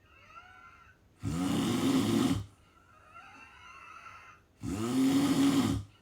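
A person snoring in sleep: two loud, pitched snores about three and a half seconds apart, each lasting about a second, with softer whistling breaths in between.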